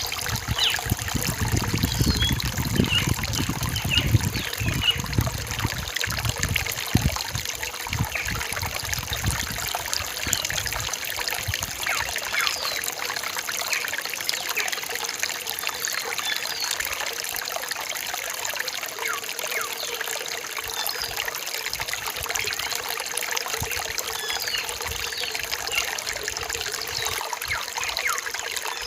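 Rainforest stream trickling and splashing over rocks, fuller and deeper for the first ten seconds or so, with short high bird calls scattered over it.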